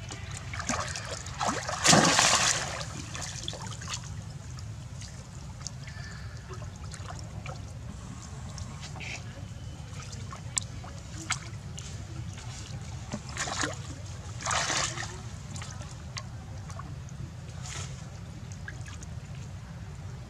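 Water splashing and sloshing as young macaques swim and wrestle in a shallow pool: a loud splash about two seconds in, two more near the three-quarter mark, and small drips and sloshes between, over a steady low rumble.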